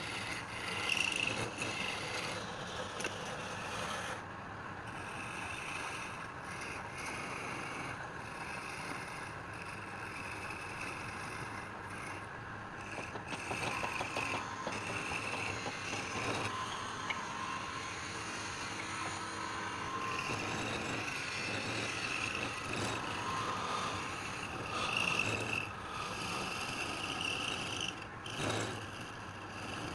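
Wood lathe running while a turning tool scrapes and cuts the spinning wood, the cutting sound swelling and fading as the tool is worked.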